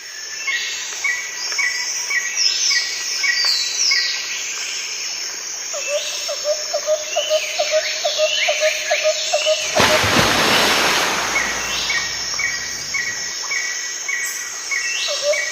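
Birds chirping and calling, with short notes repeated in quick series. About ten seconds in, a steady hiss rises beneath them.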